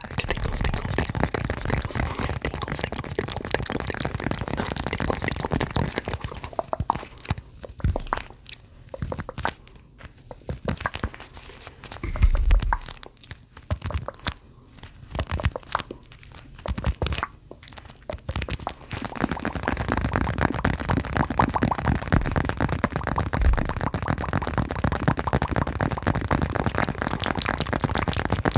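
Hacky sack squeezed and kneaded close to the microphone, its pellet filling crunching in a dense, steady crackle. The crackle thins to scattered crunches with a few soft low thumps for a stretch in the middle, then turns dense again.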